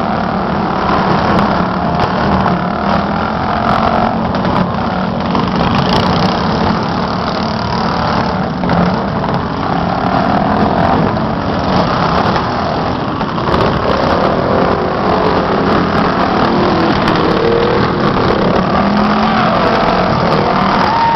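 Small engines of racing lawn mowers running, their pitch rising and falling as they rev and ease off.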